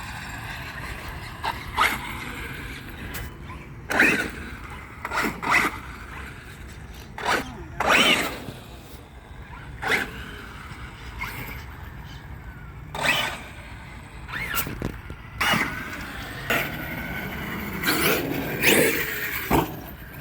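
Radio-controlled truck's electric motor whining in short, irregular bursts of throttle, with steady outdoor noise between them.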